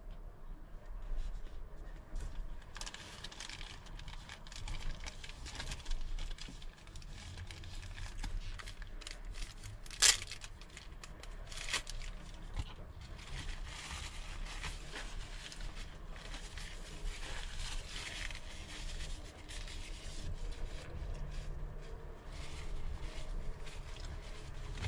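Close handling noises during a meal: paper crinkling and rustling on and off, with one sharp click about ten seconds in.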